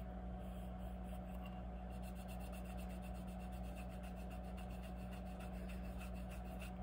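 A fingertip rubbing oil paint onto a painted metal jar lid in quick, even strokes, faint, over a steady low hum.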